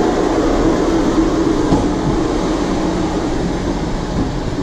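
Steady mechanical rumble of a dark-ride vehicle moving along its track.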